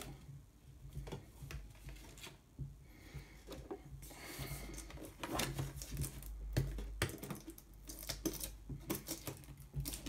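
Hands handling and opening a rigid cardboard box: irregular taps, light knocks and scrapes of fingers and cardboard, with a short stretch of sliding, rubbing sound about four seconds in.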